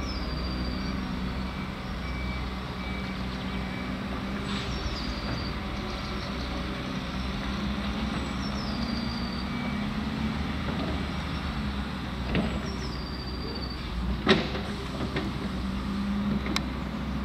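Heavy diesel earthmoving machinery running steadily, with a reversing alarm beeping in short pulses twice and a short high falling squeal recurring about every four seconds. A few sharp metallic knocks come near the end, the loudest about two thirds of the way through.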